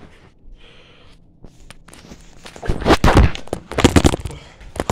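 Handling noise from a handheld phone: a few light clicks, then about three seconds in a run of loud rubbing thumps against the microphone for a second or two.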